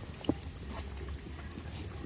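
Goats moving about, with a short sharp sound about a third of a second in and a few faint light knocks over a low steady rumble.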